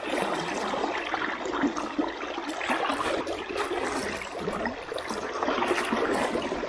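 Fast river water rushing and gurgling, with small, frequent splashes of water around a wading angler's legs.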